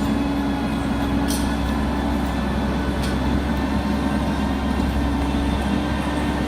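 Heavy farm machine's engine running steadily with a constant low hum, and a couple of faint clicks about one and three seconds in.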